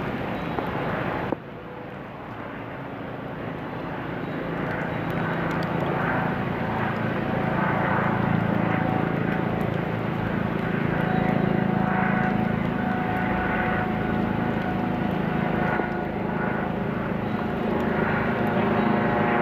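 A steady low rumble of a vehicle or machinery that cuts off abruptly, comes back quieter, swells over several seconds, then holds at a steady level.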